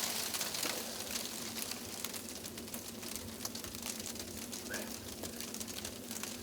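Wind-driven snow ticking against clothing and the microphone, a steady hiss full of fine crackles.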